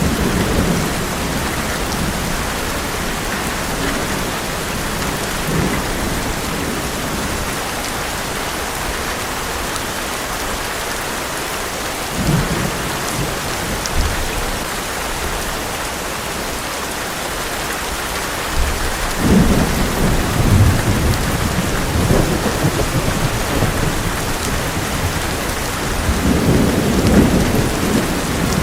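Heavy rain falling on an old metal roof as a steady hiss, with low rolls of thunder, the strongest about two-thirds of the way through and again near the end.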